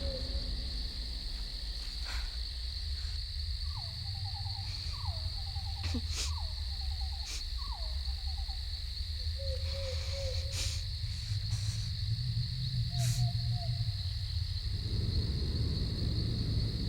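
Night outdoor ambience: a steady high insect drone over a low rumble. Short animal calls that drop in pitch and trail off in a quick trill come four times in a row from about three and a half seconds in, then once or twice more later, with a few faint clicks.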